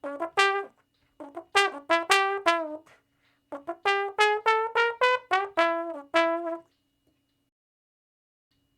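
A brass instrument playing short separate notes in three quick phrases. In the last and longest phrase the pitch climbs a little and then drops back. The playing stops about two-thirds of the way through.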